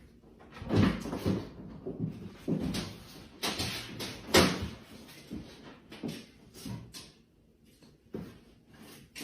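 A series of irregular knocks and thumps, like a cupboard door or objects being bumped, loudest about four and a half seconds in.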